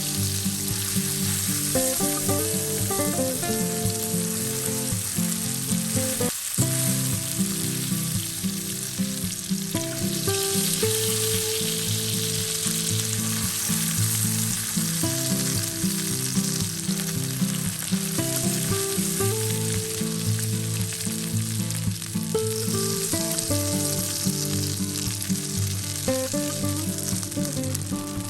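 Food frying in hot oil in a pan, sizzling steadily, over soft background music.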